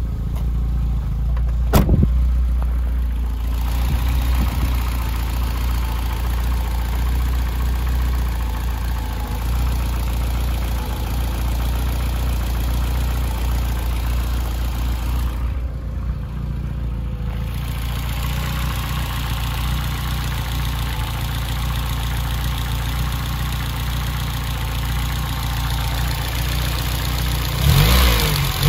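BMW E30 M3's S14 four-cylinder engine idling steadily, with a single sharp click about two seconds in. Near the end the throttle is blipped by hand at the throttle-body linkage, and the revs rise and fall back a couple of times.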